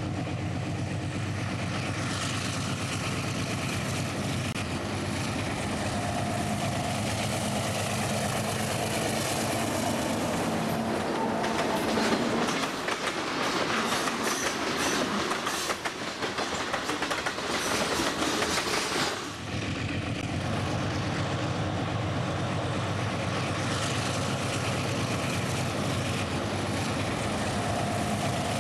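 Diesel freight train passing: a steady locomotive engine hum, then for several seconds in the middle louder rolling cars with rapid clickety-clack of wheels over rail joints, after which the steady hum returns.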